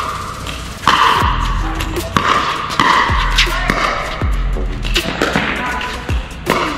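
Pickleball paddles hitting a plastic ball back and forth in a rally, sharp pops about every second. Background music with a deep bass beat plays over it.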